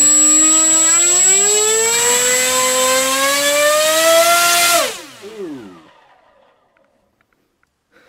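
Tarot TL3723 1700kV brushless motor spinning a 7x5 APC electric propeller on a thrust stand: a loud buzzing whine that climbs steadily in pitch as it is throttled up, with a thin high steady whine over it. About five seconds in it cuts off and winds down quickly in falling pitch.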